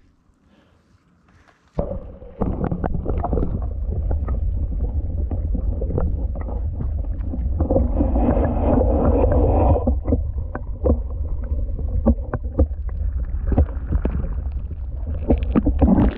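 Water sloshing and lapping right at the microphone, with a steady low rumble and scattered small knocks, starting abruptly about two seconds in.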